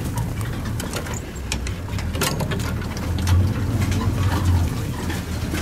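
Safari vehicle's engine idling, a low steady hum, with scattered clicks and crackles over it.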